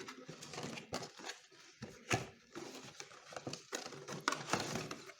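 Headphone box being unboxed by hand: cardboard and packaging rustle, scrape and knock irregularly, with a sharper click about two seconds in.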